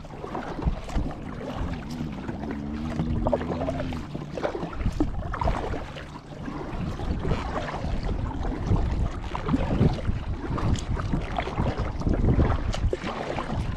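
A kayak being paddled: paddle blades dipping and splashing in the water with small knocks, and wind rumbling on the microphone.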